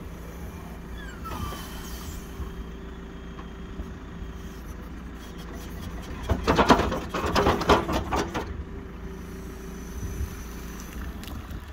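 JCB backhoe loader's diesel engine running steadily, with a loud burst of clanking and scraping about six seconds in that lasts about two seconds, as the backhoe bucket works the spoil heap.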